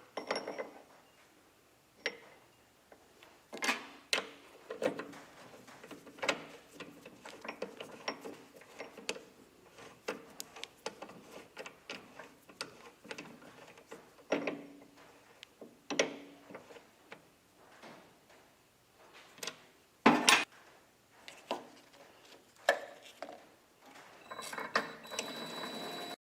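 Irregular clicks, knocks and clatter of hard parts of a vertical water-cooled knife sharpener being handled and worked by hand during repair, with one sharp knock about twenty seconds in and a denser rattling near the end.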